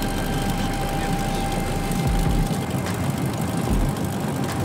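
ОВС-25 grain cleaning machine running with its auger turning: a steady mechanical din with a thin steady whine, and two low thuds in the second half. The freshly re-bearinged auger and its pulley are running evenly.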